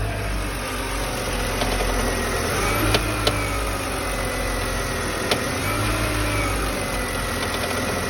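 BMW E60 525i's N52 straight-six idling while the steering wheel is turned at standstill. A whine rises and falls with the wheel's movement, and sharp clicks come through a few times. The clicking and crunching is traced to the steering rack or steering shaft, cause not yet found.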